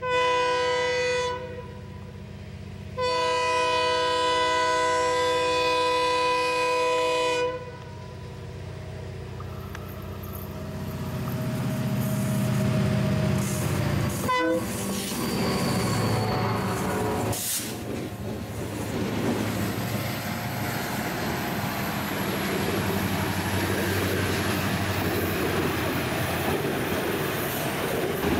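A diesel freight locomotive sounds its multi-note air horn twice, a short blast and then a longer one of about four seconds. Its engine then grows louder as it comes up and passes close by about halfway through. Freight hopper wagons follow, rolling past with steady wheel-on-rail noise.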